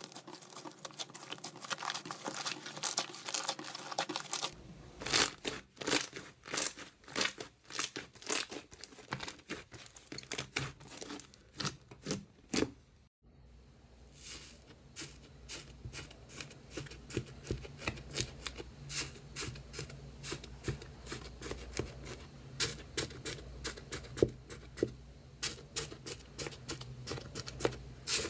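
Slime being squished and stretched, making a dense run of small clicks and crackling pops, with a brief break about halfway through.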